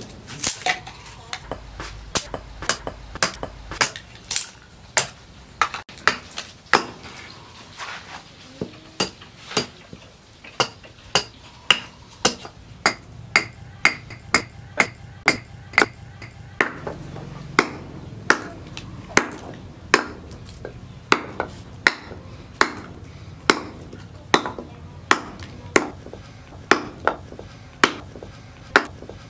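A heavy chopping knife splitting and trimming wooden sticks held on a wooden board, in a steady run of sharp chops, a little under two a second.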